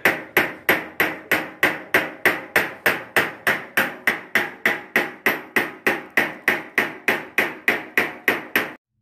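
Hand tool striking a curved sheet-metal dome panel in an even rhythm, about three metallic strikes a second with a short ring after each, stopping abruptly near the end.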